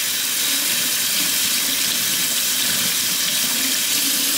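Kitchen faucet running a steady stream into a stainless steel sink, splashing over a cellulose sponge cloth as it is wetted and rinsed under the water.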